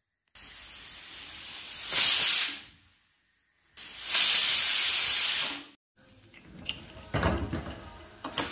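Aluminium pressure cooker on a gas flame whistling: two loud hissing jets of steam from its weight valve, the first swelling up, each stopping abruptly, which marks the carrots cooking under full pressure. From about six seconds in, a few metallic knocks and clatter as the cooker's lid is handled.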